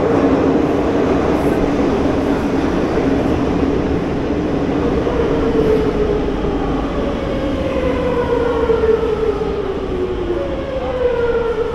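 Madrid Metro train pulling into a station and braking, with a steady rumble of wheels on rails. From about halfway, the electric drive's whine falls in pitch in several tones as the train slows toward a stop.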